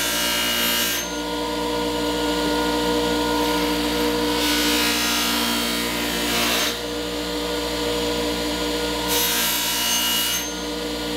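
Bench grinder with a buffing wheel charged with green compound, its motor humming steadily. Three times, for a second or two each, an adze's edge is pressed against the spinning buff and gives a hissing rush: the buffing that takes off the burr after sharpening. The contacts come at the very start, around the middle and near the end.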